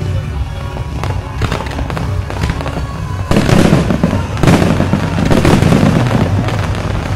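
Fireworks going off: a few separate bangs in the first seconds, then a dense run of crackling and popping from about three seconds in, loudest around the middle.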